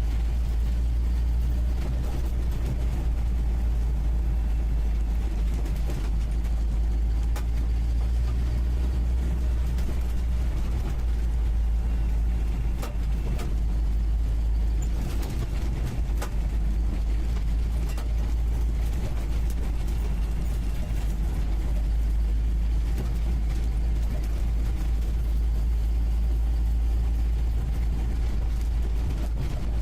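UAZ 469B's four-cylinder petrol engine running steadily under way, heard from the passenger seat inside the cab, with a deep drone and a few short knocks and rattles from the body.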